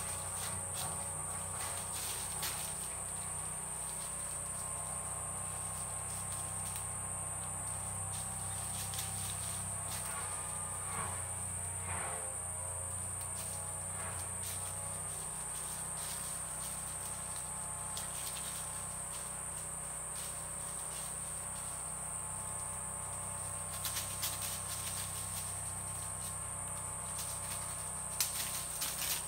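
Steady high-pitched insect chorus, an unbroken shrill drone of forest crickets or cicadas. A few brief rustles in dry leaf litter come near the end.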